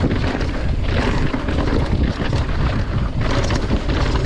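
Wind buffeting the microphone of a mountain biker riding a downhill bike at speed over rocky, gravelly trail, with the steady rumble and crunch of the tyres and occasional knocks from the bike over rocks.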